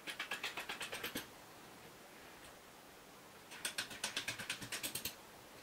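Nuts being spun by hand onto short threaded bolts set in a metal hinge plate: two runs of rapid metallic clicking at about nine clicks a second, the first about a second long at the start, the second about a second and a half long from about three and a half seconds in.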